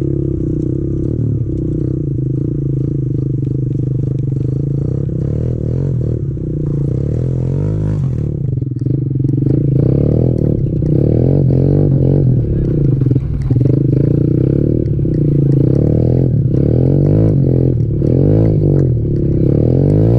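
Kawasaki KLX110 pit bike's small single-cylinder four-stroke engine running while riding, fairly steady for the first several seconds, then its pitch rising and falling again and again as the throttle is opened and closed.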